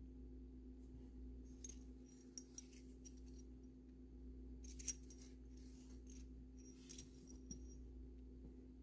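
Faint light clicks and clinks of a small bisque doll and a pencil being handled: a few scattered taps, the sharpest a little before halfway, over a low steady hum.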